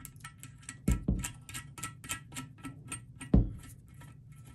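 Small brass bolt hardware, a flat washer and nut, clinking and ticking as it is handled and threaded onto a toilet tank bolt: a fast run of light metallic ticks, about five or six a second, with a few dull knocks.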